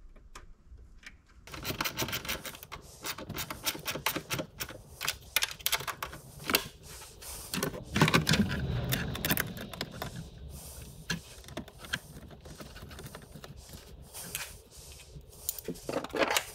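Rapid clicking, rattling and scraping of hands and hand tools working the ground wires and nuts at the battery, with a louder rustle and bump about eight seconds in.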